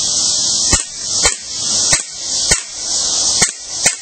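Crosman Steel Storm CO2 BB pistol firing six sharp single shots, about half a second to a second apart, over a steady high hiss.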